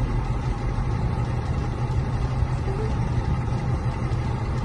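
BMW X5 E53 engine idling, a steady low hum heard inside the cabin.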